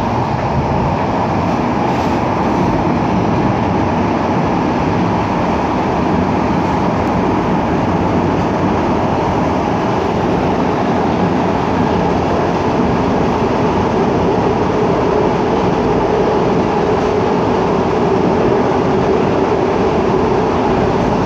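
Ankara Metro M4 train running between stations, heard from inside the car: a loud, steady rumble of wheels and running noise. A steady whine comes in about halfway through.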